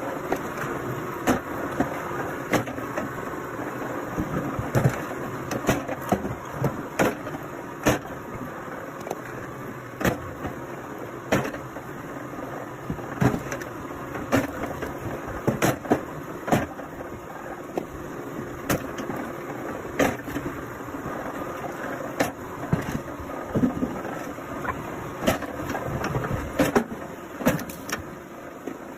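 An engine-driven wood-processing machine running steadily, with sharp knocks and clacks every second or so.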